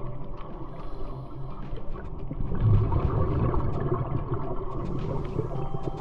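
Underwater bubbling and crackle from scuba divers' regulator exhaust, exhaled air bubbling up in a low rush. The bubbling swells louder about two and a half seconds in.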